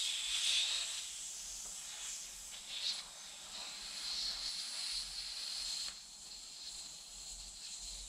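Air hissing out of the inner tube of a Yamaha XT 225 rear wheel, an uneven hiss that is strongest in the first second and weakens after about six seconds: the tube being deflated before the tyre comes off.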